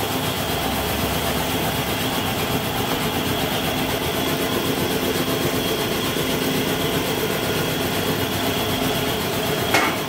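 A motor running steadily, with one sharp knock near the end.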